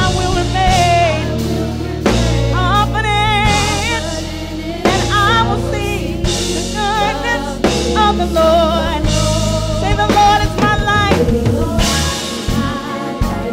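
Live gospel praise and worship music: singers with strong vibrato over a drum kit and a steady bass line.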